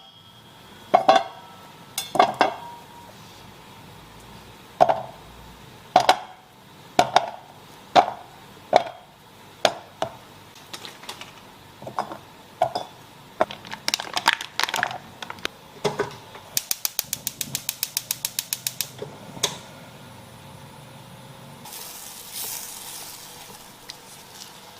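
Kitchen utensils and dishes knocking and clinking, with sharp ringing clinks about a second apart. Partway through comes a rapid, even run of clicks, about ten a second for a couple of seconds, and then a soft hiss near the end.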